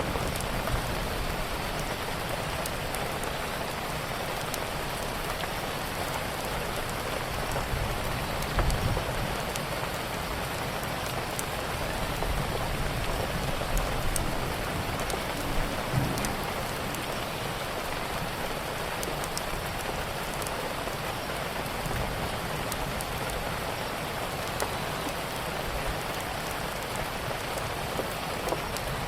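Steady rain falling as an even hiss, with scattered faint ticks and a couple of brief low thumps about nine and sixteen seconds in.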